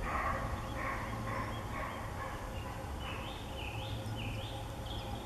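Roe buck giving its alarm bark as it flees: a run of about six short, harsh barks about half a second apart, growing fainter over the first two and a half seconds. A few higher, rising whistled notes follow.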